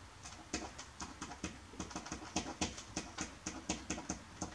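A pen writing on paper: quick, irregular taps and short scratches, several a second, as letters and symbols are written out.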